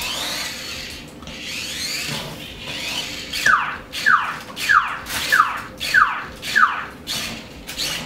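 Parrot Jumping Sumo minidrone whining as it drives, its pitch sliding up and down. About three and a half seconds in it changes to a run of six short whines, each falling in pitch, about two every second.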